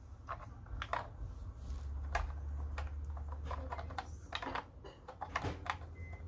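Scattered light clicks and knocks of objects being handled, irregular and uneven in loudness, with a low rumble for a couple of seconds in the middle.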